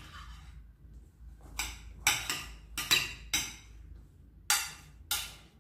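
Spoon stirring thick homemade slime in a glass baking dish, knocking and scraping against the dish in about seven uneven, sharp strokes. The slime is firming up and coming away from the dish.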